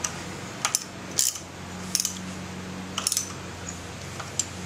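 Small metal parts of a trike's disc-brake mount, the bracket, bolts and washers, clinking and clicking as they are handled and fitted by hand: a handful of sharp clicks spread a second or so apart, over a steady low hum.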